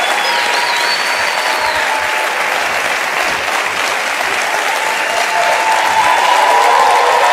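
Studio audience applauding, with scattered shouts and whistles of cheering, growing a little louder near the end.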